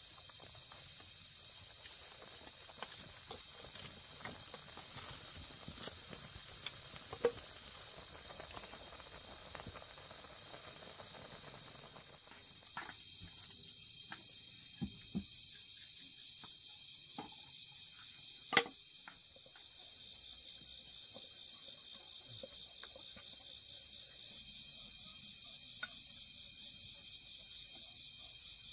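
A chorus of insects keeps up a steady, high-pitched chirring drone, a little louder from just under halfway. Scattered small clicks and knocks are heard, the sharpest about two-thirds of the way through.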